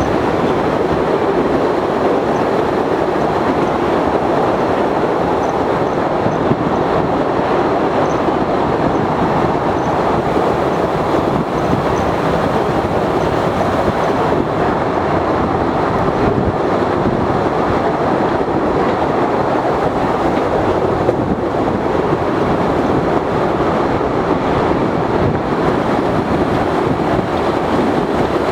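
Postojna Cave's tourist train running along its track: a steady, loud rattle and rumble of wheels on rails and the open carriages.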